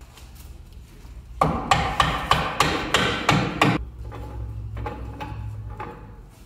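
A mallet strikes the centre knock-off spinner of a spare wire wheel, about eight sharp blows in quick succession, knocking the spinner loose. Fainter knocks follow.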